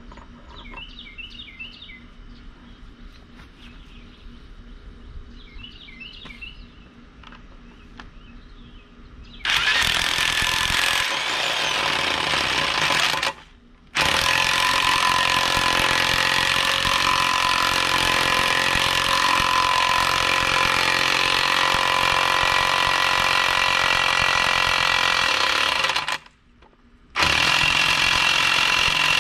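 Impact wrench running in three long, loud bursts, driving the nuts onto the new stump-jumper blade bolts of a boom mower until they stop turning. Before the wrench starts, a bird chirps twice.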